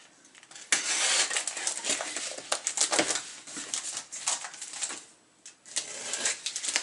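Handling noise of plastic comic bags and cardboard: irregular crinkling and rustling with many light clicks and taps, as a fresh bag is fished out of a cardboard box.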